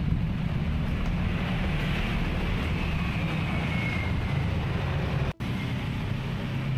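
Street traffic passing, with a steady low rumble and a faint whine from a passing vehicle that falls slightly in pitch around the middle. The sound drops out for an instant about five seconds in.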